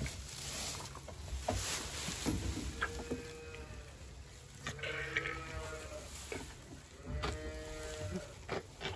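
Newborn calf bleating: about three short, pitched calls a couple of seconds apart.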